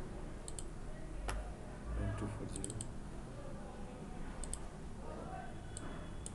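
Computer mouse clicking, with several quick double-clicks spaced through, over a low steady background hum.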